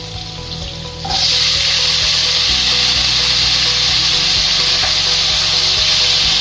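Diced carrots and potatoes sizzling in hot oil in a nonstick wok, the sizzle jumping much louder about a second in and then running steadily, with a spatula stirring and scraping through the vegetables.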